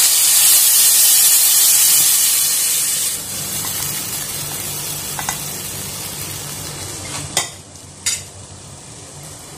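Ground pork with garlic and onion sizzling in a frying pan as palabok sauce mix is added and stirred in. The sizzle is loud for about three seconds, then settles to a quieter frying hiss, with two sharp knocks of a spoon against the pan near the end.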